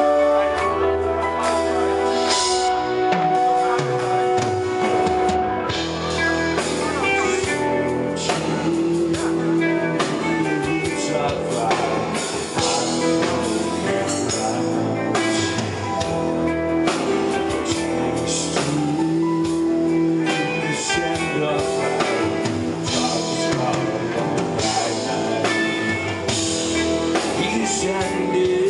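Live band performance of a symphonic metal song: sustained keyboard chords over electric guitar, bass and drums, with a male lead singer's voice over the band.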